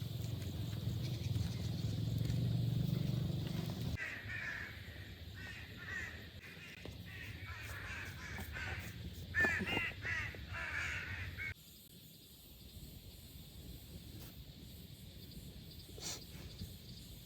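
A low, steady rumble for the first few seconds, then birds calling over and over for several seconds, in caw-like calls. The sound cuts off suddenly to quiet outdoor ambience.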